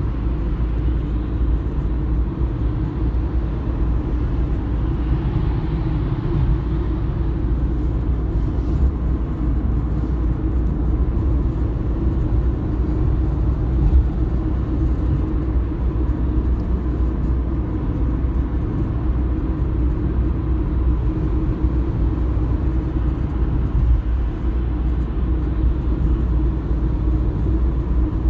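Cabin noise inside a moving 2016 facelift Renault Clio IV: a steady low road and engine rumble, with a couple of brief knocks from the interior trim, about halfway through and near the end.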